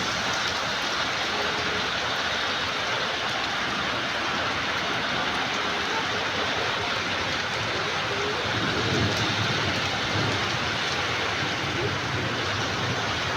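Heavy rain falling steadily, an even hiss, with a low rumble swelling up a little past the middle.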